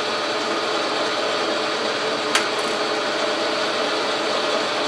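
Logan metal lathe running steadily while turning an aluminum rod, with one short click about two and a half seconds in.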